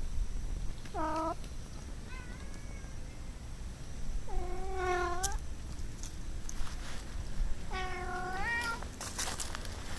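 A kitten meowing four times: a short meow, a faint one, then two longer meows of about a second each, the last rising in pitch at its end.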